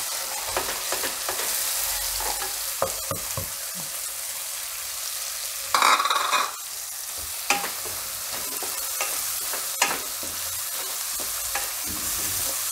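Chopped green garlic sizzling in hot sesame oil in a kadai, the tempering (vaghar) of a curry, while a spatula stirs and scrapes the pan. A steady frying hiss, with scattered clicks of the spatula against the pan and one louder scrape about halfway through.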